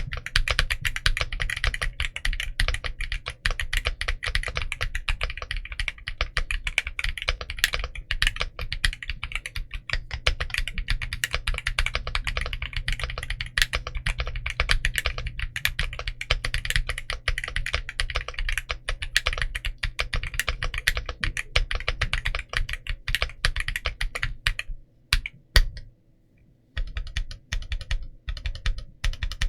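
Fast, continuous typing on a mechanical keyboard fitted with stock Akko Creamy Purple Pro short-travel tactile switches and DCX doubleshot PBT keycaps. It pauses briefly near the end, then resumes.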